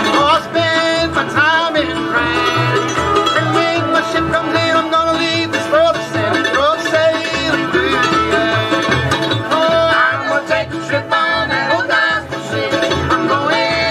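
Old-time string band playing live: fiddle, mandolin, acoustic guitar and upright bass, with a man singing over a steady bass pulse.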